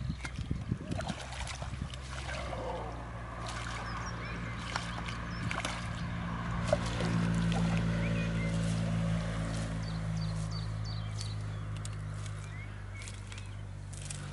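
Hooked carp splashing at the surface close to the bank as it is played and drawn into the landing net, with many sharp splashes. A steady low engine hum underneath grows louder in the middle and then eases, and faint high chirps come and go.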